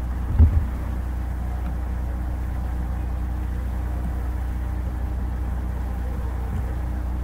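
Steady low background hum on the recording, with one brief low thump about half a second in.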